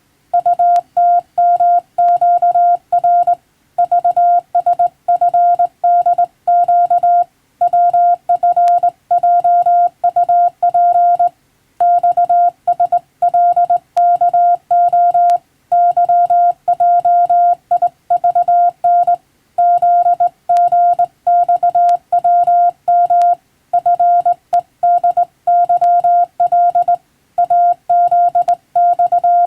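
Morse code: a single steady beep keyed on and off rapidly in runs of characters, with a longer pause about every four seconds. It is Morse telegraphy practice, sending English-language telegram text.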